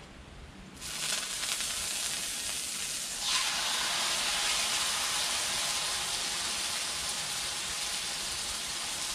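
Raw flap steak sizzling as it is laid on a hot Blackstone griddle. The sizzle starts suddenly about a second in, grows louder about three seconds in as the rest of the steak goes down, and then holds steady.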